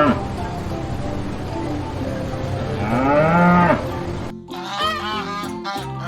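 A mooing animal call: the tail of one call at the start, then a single long call about three seconds in that rises and then falls in pitch, over background music. A plucked melody takes over about four seconds in.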